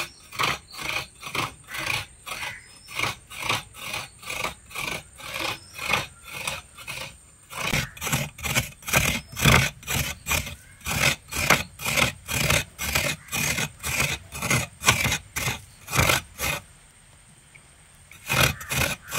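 Half a coconut scraped against the serrated metal blade of a coconut scraper, grating the flesh in quick rhythmic strokes, about two or three a second. The strokes pause near the end, then a few more follow.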